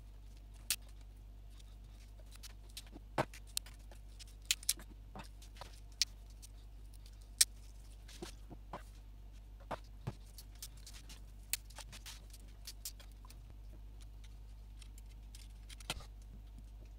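Irregular sharp clicks and taps of small electronic parts, wires and a small hand tool being handled on a desk while an LED bulb's power supply is disconnected and picked apart. A steady low hum runs underneath.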